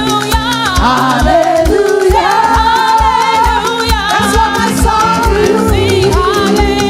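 Gospel praise team singing over a live band, with a steady drum beat about twice a second; the voices hold one long note partway through.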